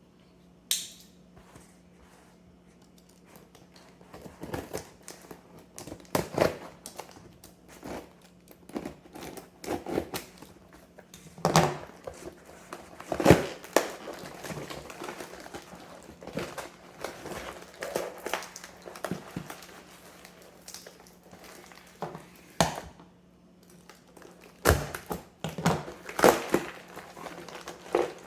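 A shipping box being unpacked by hand: irregular crinkling and rustling of packing material, with occasional tearing and a few louder knocks and thuds.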